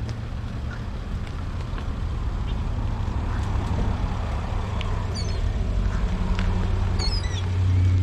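Seagulls calling, a few short calls about five seconds in and again just after seven, over a steady low hum.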